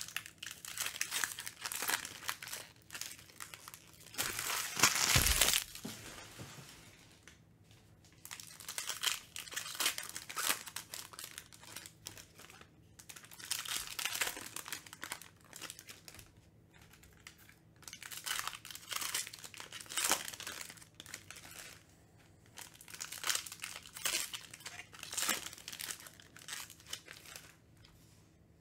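Foil trading-card pack wrappers (Panini Mosaic basketball) crinkling and tearing as they are ripped open by hand, in a run of short crackly bursts. The longest and loudest tear lasts about a second and a half, about four seconds in.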